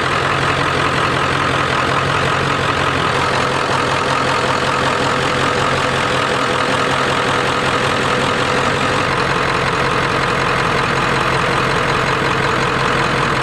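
Ford 7.3 PowerStroke turbodiesel V8 in a 1997 F-350 idling steadily.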